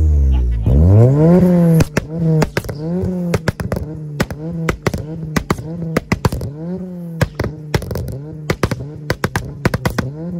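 Ford Sierra RS Cosworth's turbocharged four-cylinder engine revved hard once, then blipped again and again, about once a second. Its exhaust pops and crackles sharply between the revs.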